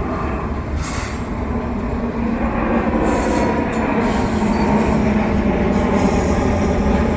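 CPKC double-stack container train rolling past at close range: steady rumble and clatter of wheels on rail, with some wheel squeal, growing slightly louder a couple of seconds in.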